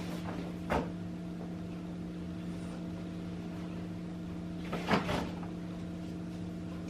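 A steady low electrical hum from a household appliance, with a few brief knocks and rustles of laundry being handled about a second in and again about five seconds in.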